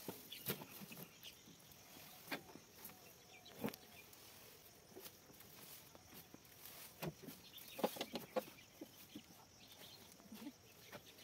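Green fodder stalks rustling and knocking as they are tossed and piled into a steel tractor trolley. The sounds come as scattered soft knocks, with a busier cluster about eight seconds in.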